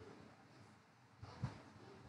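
Near silence: faint room tone, with a brief soft low sound a little over a second in.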